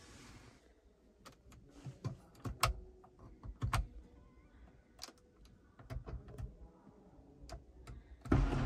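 Scattered light clicks and taps at the ORA Good Cat's overhead console. Near the end, the roof-control switch is pressed and the car's electric roof motor starts running steadily.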